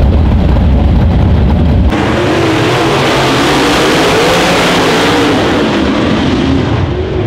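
Dirt-track race cars running hard on the track, several engines at once, with their pitch rising and falling. For about the first two seconds a deep, low engine rumble dominates, then the sound changes abruptly to the wider sound of the pack.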